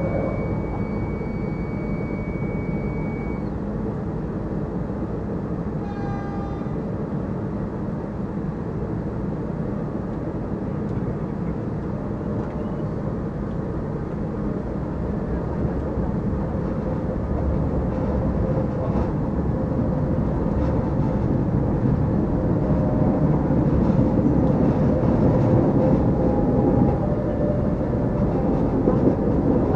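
KRL electric commuter train heard from inside the carriage: a steady rumble while it stands at the platform, growing louder over the last dozen seconds as the train pulls away and picks up speed. A thin high steady tone sounds for the first few seconds.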